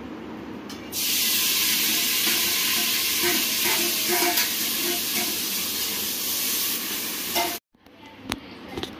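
Hot oil sizzling in a steel pot on a gas stove as ingredients are tipped in for tempering a vegetable biryani. A loud, even hiss starts suddenly about a second in and cuts off abruptly near the end.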